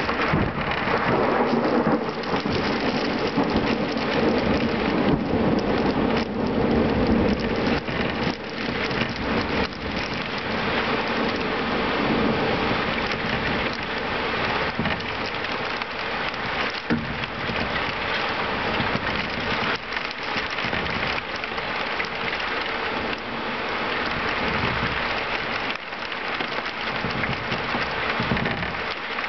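Heavy thunderstorm rain, driven sideways by the wind, pouring steadily, with thunder rumbling that is heaviest over the first several seconds.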